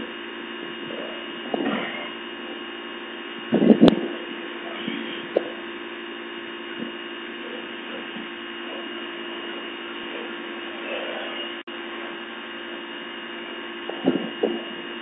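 Briggs & Stratton S1800 electric pressure washer running with a steady electric hum while its jet sprays, with short louder bursts about four seconds in and again near the end.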